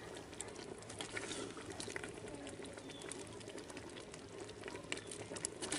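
Thick, cooked-down chicken masala bubbling and sizzling in a clay handi while a wooden spatula stirs and scrapes through it, with many small scattered pops.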